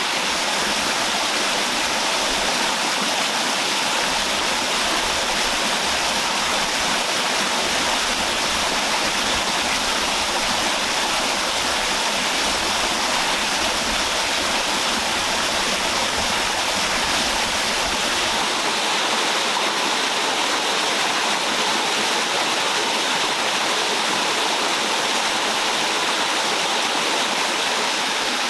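A stream running steadily, an even, unbroken wash of water noise.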